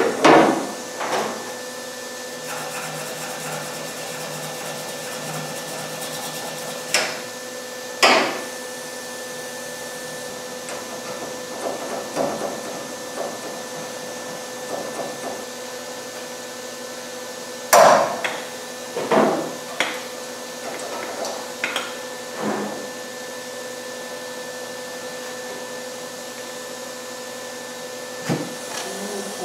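Scattered metal knocks and clanks, about ten of them and irregularly spaced, the loudest a little past halfway, from handling a MIG welding torch and locking clamps against a car's bumper bracket and frame rail. A steady hum runs underneath.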